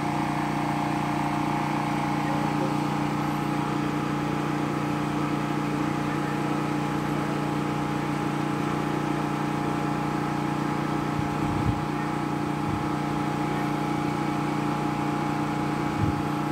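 Electric water pump motor running with a steady hum as it pumps water up into the drum tanks, which are still filling. Two brief low thumps in the second half.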